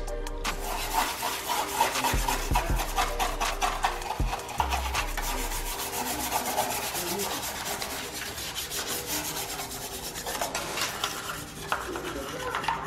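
Hand scrubbing and wiping over the plastic engine cover and parts of a car's engine bay during detailing, a fast, steady run of short rubbing strokes as the cleaner and dust are worked off.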